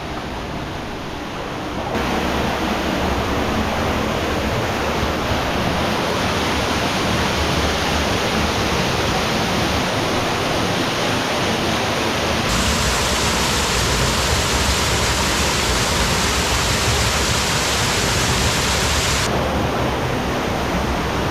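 Rushing water of the Left Fork of North Creek cascading through the Subway slot canyon, a loud steady rush that jumps abruptly in level and brightness about two seconds in, again about halfway through, and near the end.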